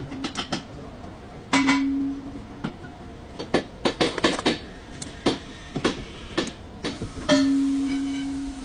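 Metal parts being handled: repeated clinks and knocks, and twice a sharp metallic strike that rings on in one steady tone, briefly about a second and a half in and longer near the end.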